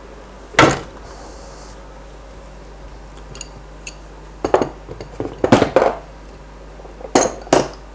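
Steel tools and engine parts clinking and knocking on a workbench while the drive gear is worked off a Rotax engine's crankshaft with a puller. A single clank comes first, then a cluster of clinks about halfway through, and two sharp clinks near the end.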